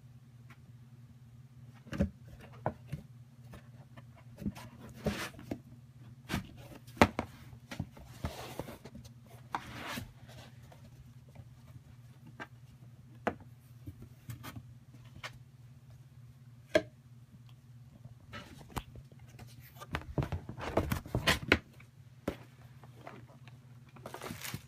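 A cat pawing and scratching inside a cardboard box: irregular scrapes, rustles and knocks on the cardboard, busiest about twenty seconds in, over a steady low hum.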